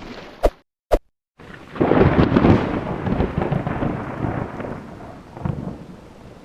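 Two sharp clicks, then a loud rumbling crash sound effect that swells about two seconds in and slowly dies away.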